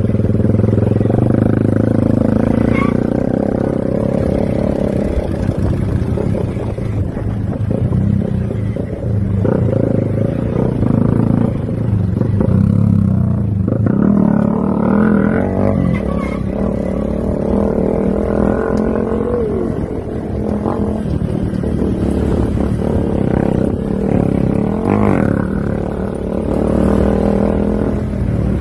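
Motorcycle engine running on the move, its pitch rising and falling with the throttle over a steady low rumble.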